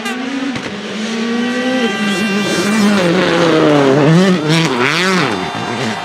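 Hyundai i20 WRC rally car's turbocharged four-cylinder engine at full throttle. The pitch climbs and drops with each gear change, then rises and falls quickly with throttle lifts and blips about three to five seconds in, where it is loudest.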